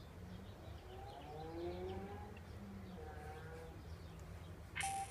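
Samsung Galaxy S5 startup chime playing from the phone's speaker as it boots: a soft electronic tune of several gliding tones. A short sharp sound with a brief tone follows near the end.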